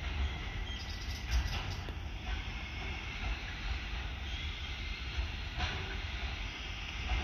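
Intermodal container freight train rolling past: a steady low rumble of wagons on the rails, with a few faint knocks.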